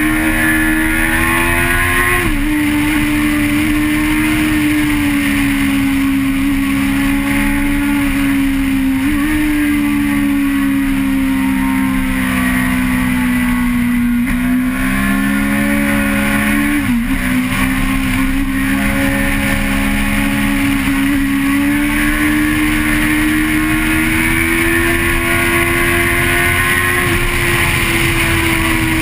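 Vehicle engine heard from an onboard camera, running hard at high, fairly steady revs, its pitch dipping briefly and recovering a few times, with wind and road hiss.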